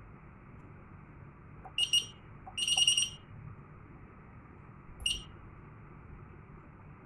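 Fire alarm control panel's buzzer sounding high-pitched beeps: two short beeps about two seconds in, a longer beep just after, then one more short beep about five seconds in.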